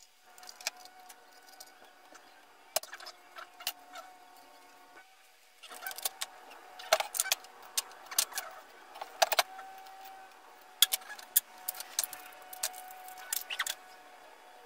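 Brass air fittings and small metal parts clinking and clicking as they are handled and threaded together by hand, a scatter of sharp metallic clicks with short ringing, thickest in the second half, over a faint steady hum.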